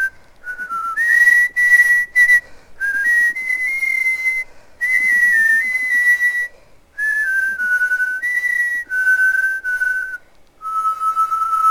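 A person whistling a slow melody: short phrases of stepping notes separated by brief pauses, then one long held note near the end.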